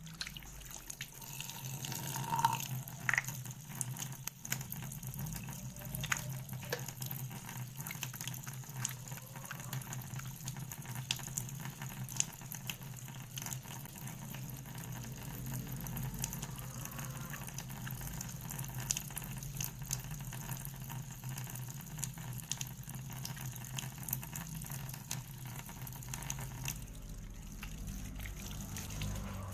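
Water running steadily from a tap into a sink, with small splashes and clicks throughout.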